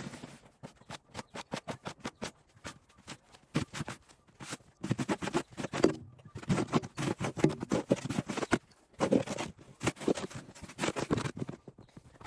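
Crunching and scraping in deep, fresh snow: a run of quick crackling clicks, thickening into denser bursts of crunching in the second half.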